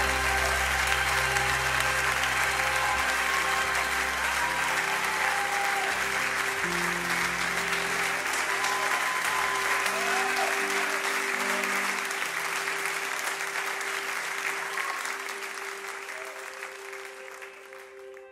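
Audience applause over the closing notes of a live song, with a plucked guitar among the instruments; it fades out over the last few seconds.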